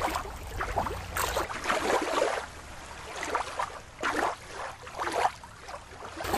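Water lapping and sloshing in uneven surges. A low wind rumble drops out about a second and a half in.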